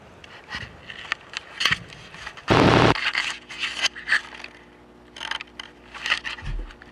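Scraping and crackling noises, with a loud rough scrape about two and a half seconds in. A steady low hum comes in right after it.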